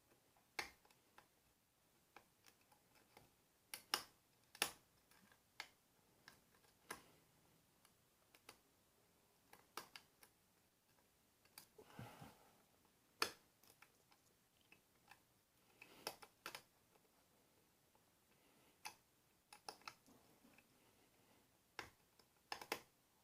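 Faint, irregular small metallic clicks and ticks of a deforest diamond lock pick raking and lifting pins in an Ilco pin-tumbler lock under tension, the clicks of pins being set one by one.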